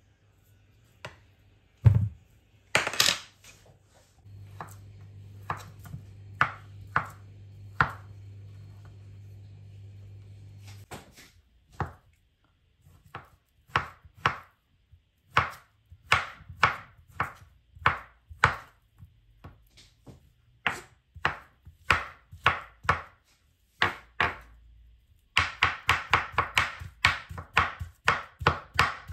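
A knife chopping on a cutting board: single, irregular chops at first, then a quick run of steady chopping, about six strokes a second, near the end. A low hum sits under the chops for several seconds early in the run.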